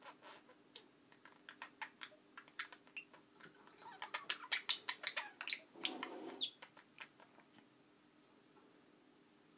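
Budgerigars making quick clicking chirps and chatter, sparse at first, then a dense flurry in the middle, falling away in the last two seconds.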